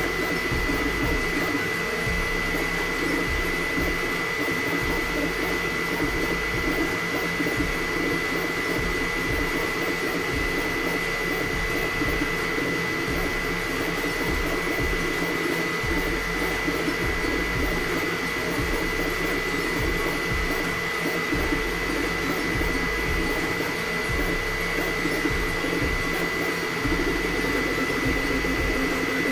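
Elegoo FDM 3D printer running a print: a steady fan whir with a high steady tone, under a constantly shifting motor buzz as the print head moves, which changes pattern near the end.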